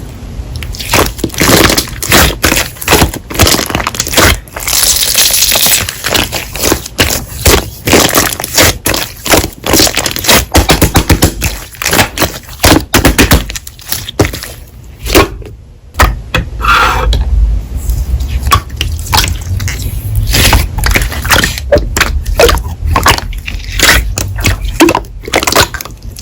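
Slime being squeezed and pressed by hand, a dense run of crackling and popping clicks with a brief pause partway through.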